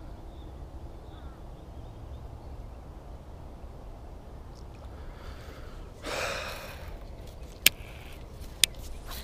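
A long breath out like a sigh about six seconds in, then two sharp clicks about a second apart as a baitcasting reel is handled, over a faint low rumble of wind on the microphone.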